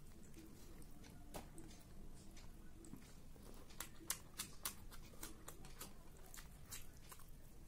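Faint eating sounds of rice eaten by hand: chewing and fingers mixing rice on a glass plate, heard as a scatter of small wet clicks that is busiest about four to five seconds in.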